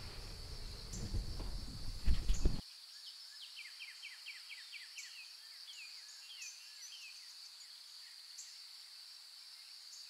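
Rain and wind rumbling on a car, heard from inside the cabin, with a few loud knocks about two seconds in. It cuts off abruptly to small birds singing: repeated quick chirps falling in pitch, over a steady high-pitched hiss.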